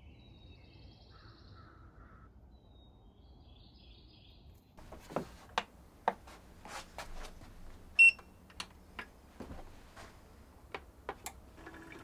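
Clicks and knocks of a hand handling an EcoFlow portable power station and pressing its buttons, with one short loud electronic beep about eight seconds in. Before that there is only a faint low hum with a few faint chirps.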